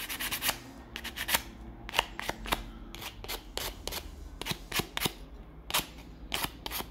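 Irregular light clicks and taps with a little scraping at the start, as small hard plastic parts are handled and set down on a work surface.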